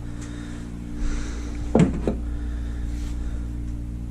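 A steady low hum with faint handling noise, and a short knock a little under two seconds in, followed by a smaller one.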